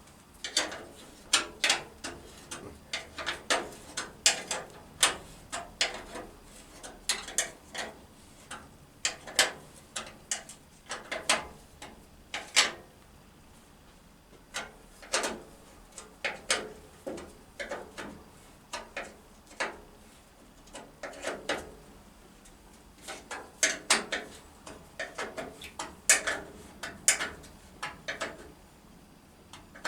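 Hand ratchet wrench clicking in quick runs of strokes with short pauses as a radiator mounting bolt is wound in.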